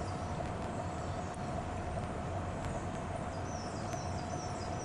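Outdoor background noise with low rumble and a steady hum. A small bird chirps a short repeated phrase about three and a half seconds in.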